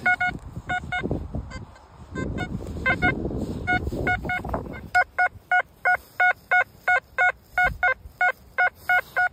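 XP ORX metal detector giving short, identical electronic target beeps as the coil passes over buried metal. There are a few beeps over low handling noise in the first half, then from about halfway they repeat steadily at about three a second.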